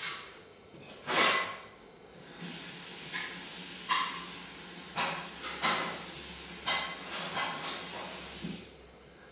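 A scrape about a second in, then a string of small knocks and clicks from objects handled on a metal table, over a steady hiss that stops near the end.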